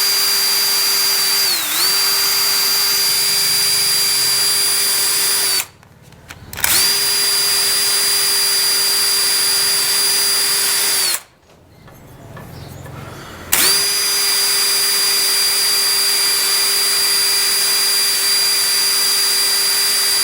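Electric drill spinning a wire brush, its steady whine running in three spells with two short stops between them and dipping briefly in pitch about two seconds in. The brush is scuffing the shiny glazed face off scooter brake pads.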